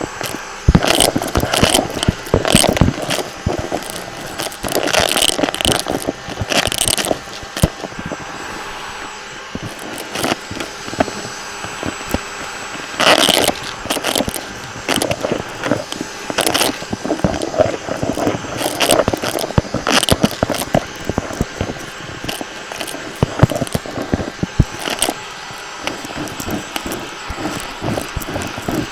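Vacuum cleaner running steadily while being pushed fast across the floor, with frequent irregular crackles, scrapes and knocks from the cleaner head and debris being picked up.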